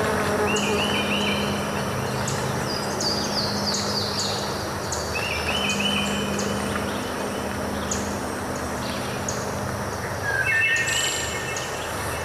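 Steady rush of flowing water from a small waterfall, with songbirds chirping over it: a short trill near the start, again about midway and once more near the end, a quick run of falling notes about three seconds in, and scattered high peeps.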